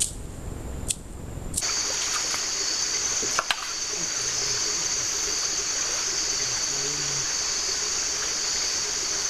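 Creek water flowing and trickling steadily under a high, even hiss, with men's voices faint and low beneath it. A couple of sharp clicks come about three and a half seconds in.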